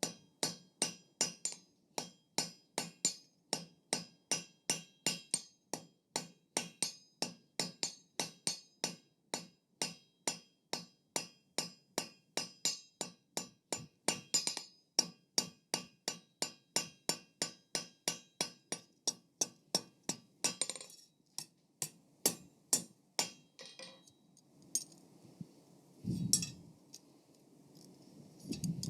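Steady hand-hammer blows on hot steel over an anvil, about three a second, each with a bright ring, as an antler tine is drawn out to a taper. The hammering stops about 23 seconds in, leaving a few light clinks and two dull thumps.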